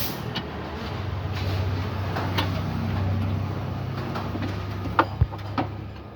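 A low, steady engine hum that swells a little a couple of seconds in, with a few sharp clicks near the end.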